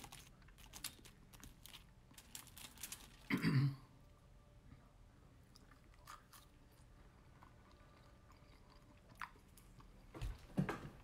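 Close-up chewing of crunchy fried food, with crisp crunches for the first few seconds, a brief louder low sound about three and a half seconds in, then quieter chewing.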